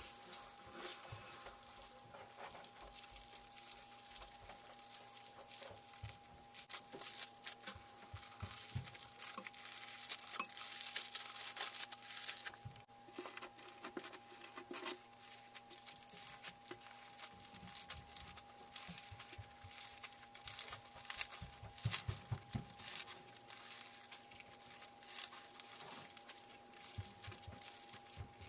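Slime being squeezed, poked and stretched by hand, giving dense, irregular crackling and popping that grows louder about ten seconds in, over a faint steady hum.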